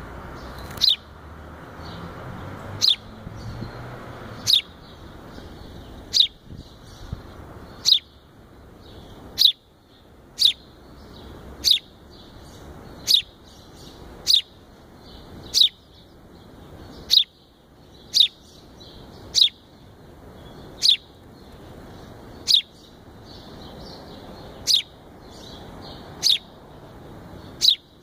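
Fledgling house sparrow chirping over and over, one short, loud, down-slurred chirp about every second and a half.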